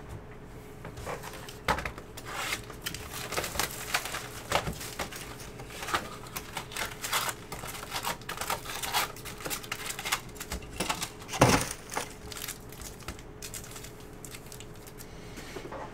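A trading-card hobby box being opened and its foil card packs taken out and stacked by hand: irregular crinkling and rustling of the foil wrappers and cardboard, with one sharp thump about eleven seconds in.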